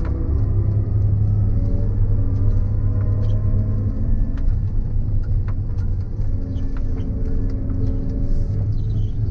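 Claas Lexion 770 combine harvester running steadily at work, a low engine and machinery drone with scattered light ticks.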